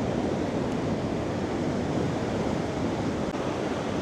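Large Atlantic waves breaking and rushing in, a steady roar of surf with wind buffeting the microphone.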